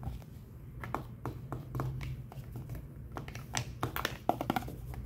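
Scattered light clicks and taps of plastic as a gloved hand handles a toy dental teeth model and toothbrush, over a low steady hum.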